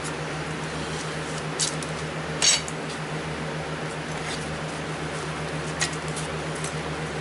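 A few light metallic clinks, the loudest about two and a half seconds in, over a steady low hum like a fan running.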